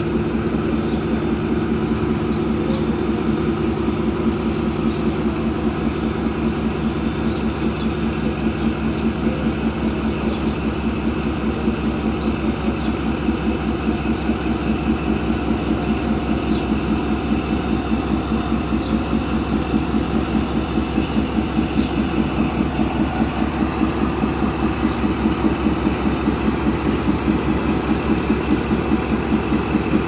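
Pakistan Railways ZCU-30 diesel-electric locomotive's engine running steadily at idle or low power, with an even, rhythmic throb.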